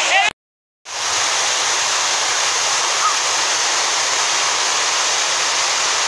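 Waterfall: a steady rush of water pouring over rock into a pool. The sound cuts out completely for about half a second near the start, then resumes unchanged.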